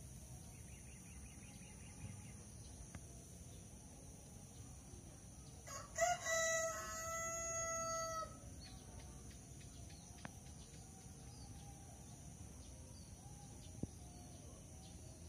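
A rooster crows once, about six seconds in, in a single crow of about two seconds. A steady high-pitched hiss runs underneath.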